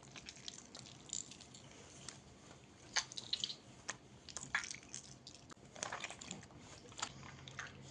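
Slime being squeezed and worked by hand: irregular soft squishes and small sticky clicks and pops, the sharpest about three seconds in and again near the end.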